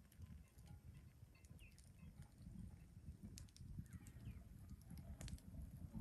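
Quiet bush ambience: a wood fire crackling with a few sharp pops around the middle and near the end, over a low rumble, with faint bird chirps now and then.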